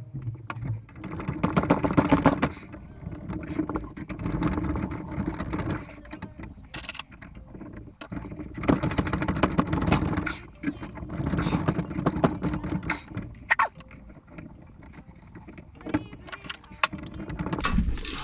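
Rapid metallic clicking and clinking in several spells of a second or two, from hand tools and metal parts being worked on a motorcycle shock spring compressor while a heavier spring is fitted to the rear shock.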